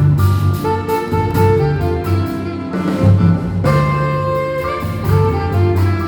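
Live jazz combo playing: held melody notes over a moving double-bass line, with drum cymbals ticking throughout.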